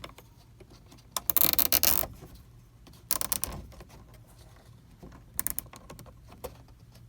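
Zip tie being pulled tight, its ratchet clicking in quick runs: a long run about a second in, a shorter one about three seconds in, and a few clicks past five seconds.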